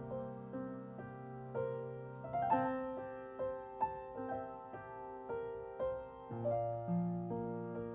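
Solo piano playing a slow, gentle piece. Chords and single notes are struck about twice a second and left to ring out over low bass notes.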